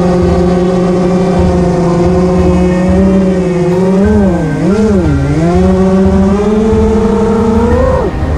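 Small FPV quadcopter's brushless motors whining steadily, the pitch dipping and recovering twice about halfway through, then climbing before dropping sharply near the end, over a gusty low rumble.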